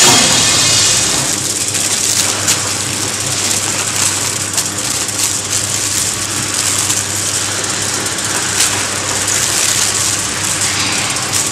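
Leafy-vegetable packaging machine running: a steady rushing hiss over a low hum, with occasional light clicks.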